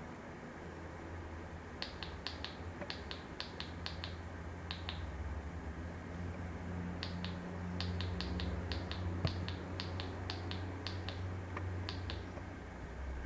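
Plastic remote-control buttons clicking in quick pairs, press and release, as a menu is stepped through one entry at a time. There are two runs of clicks, one starting about two seconds in and the other about seven seconds in, over a steady low hum.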